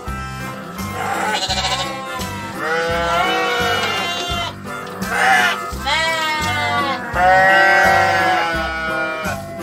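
Goats bleating, about five separate wavering calls, over background music with a steady beat.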